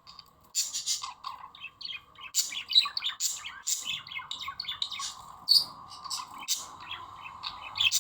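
Budgerigars chattering, a dense run of rapid chirps and short warbled calls, with a steady tone near 1 kHz underneath.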